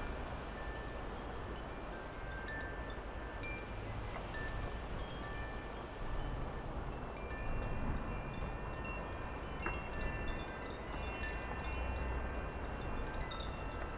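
Backyard wind chimes ringing irregularly in a breeze, overlapping tones that grow busier about halfway through, over a low wind rumble.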